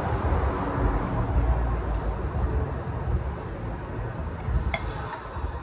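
Uneven low outdoor rumble, with two or three faint clicks near the end.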